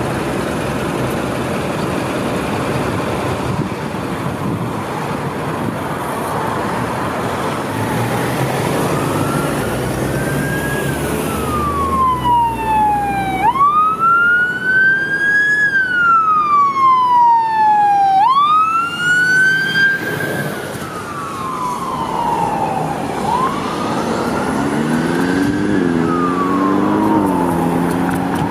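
Fire engine siren wailing as the truck passes, each cycle a quick rise and a slower fall, loudest midway, over road traffic noise. Near the end a second, lower warbling tone joins in.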